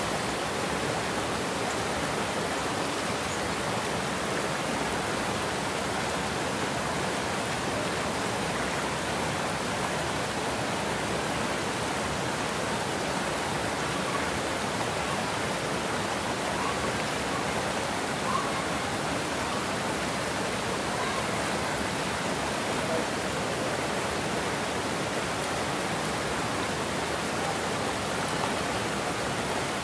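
Water pouring over a concrete weir into churning whitewater: a steady, even rushing with no breaks.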